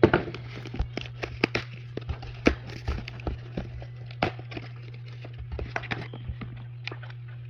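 Packaging of a pair of sunglasses being handled and opened: irregular clicks, taps and crinkles of plastic and cardboard, over a steady low hum.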